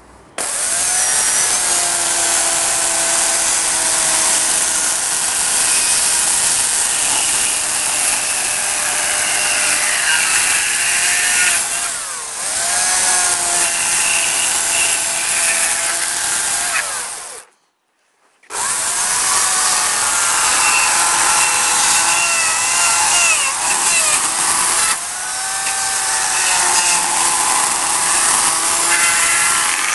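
Dolmar electric chainsaw cutting into beech wood. The motor's whine sags and recovers in pitch as the chain bites and frees up. It cuts out for about a second two-thirds of the way through, then runs and cuts again.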